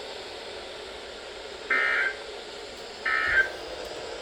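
Two short, raspy digital data bursts from NOAA Weather Radio, about a second and a half apart, over steady radio static: the SAME end-of-message signal that closes the weekly test broadcast.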